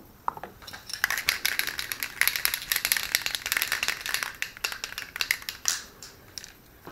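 Yellow marking paint being shaken hard, its mixing ball rattling rapidly for about five seconds.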